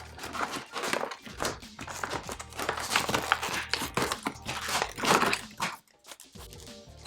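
Plastic packaging crinkling and rustling in irregular crackles as tool-kit items are handled and pulled from it.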